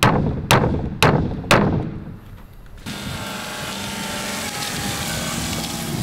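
Hammer driving a nail into a wooden pallet slat: four sharp strikes about half a second apart, fading out by about two seconds in. From about three seconds in, a steady outdoor background noise.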